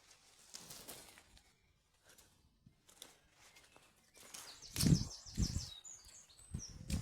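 Footsteps outdoors, quiet at first, then a few heavier steps in the second half, with a bird's quick run of short high chirps over them.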